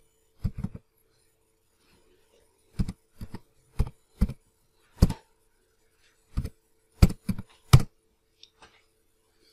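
Computer keyboard keys being typed in short, irregular clicks, about fifteen keystrokes in small clusters with pauses between them.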